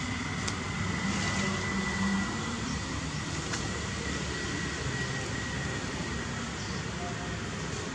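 Steady outdoor background noise: a low rumble and hiss, with a faint, thin, high steady whine running through most of it.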